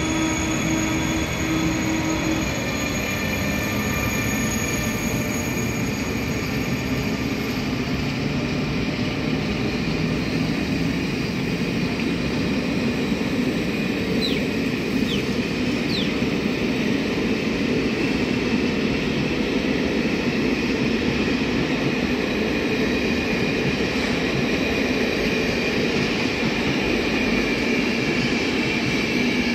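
Passenger train hauled by an Alstom electric locomotive pulling out and rolling past on the rails: a steady rumble of coach wheels. A high electric whine in the first few seconds fades away, and a few short wheel squeals come about halfway through.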